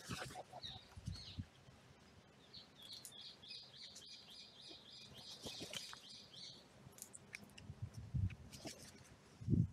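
A small songbird sings a fast, even trill for about four seconds, starting about two and a half seconds in. Scattered light ticks and taps come from crows pecking at food on the ground, and a few soft low thumps sound near the end.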